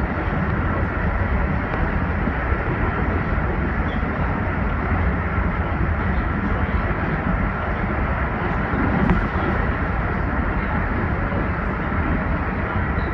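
Steady running noise of an Amtrak Acela electric train: an even low rumble with a faint steady whine above it, unchanging throughout.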